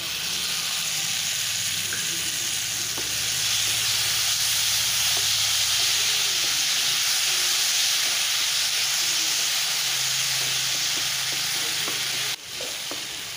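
Green ground masala paste sizzling in hot oil in a nonstick frying pan as it is stirred with a spatula, a steady hiss with faint scrapes. The sizzle drops away suddenly near the end.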